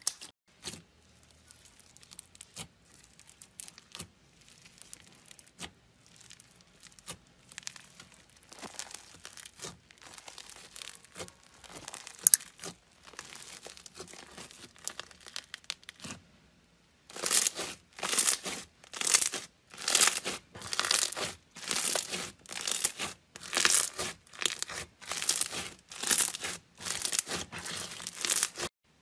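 Hands squeezing and kneading slime: faint squelches, small pops and crackles at first, then from just past halfway a textured slime pressed in a steady rhythm, a loud crackling burst with each press, about three every two seconds.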